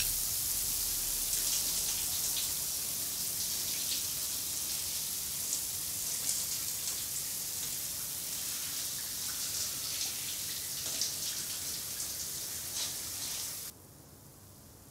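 Shower head spraying water: a steady hiss with small spatters, stopping abruptly about a second before the end.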